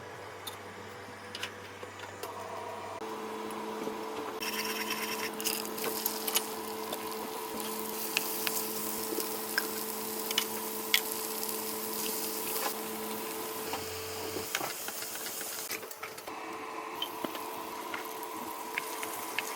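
Cooking fried rice in a pan: sizzling hiss with the clicks and knocks of a utensil stirring, over a steady mechanical hum.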